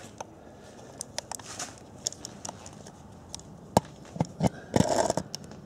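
Handling noise as a video camera is set down on a workshop floor: scattered light clicks and knocks, a sharp knock, and a louder clatter near the end.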